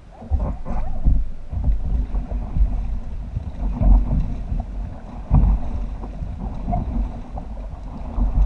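Raft paddles dipping and pulling through river water, with irregular splashes about once a second, over a heavy rumble of wind on the camera microphone.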